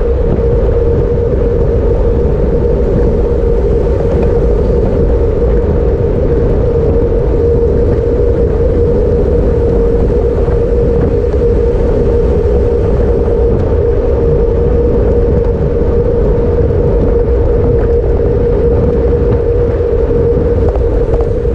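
Steady wind rush and road rumble on a road bike's handlebar-mounted camera while riding fast in a bunch of cyclists, with a constant mid-pitched hum throughout. It is loud and unbroken.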